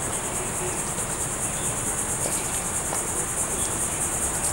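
Insects chirring steadily outdoors: a high-pitched, rapidly pulsing drone that does not let up.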